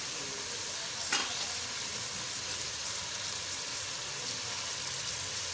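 Sliced onions sizzling in hot cooking oil in a steel pot, a steady frying hiss as they begin to brown, with a single click about a second in.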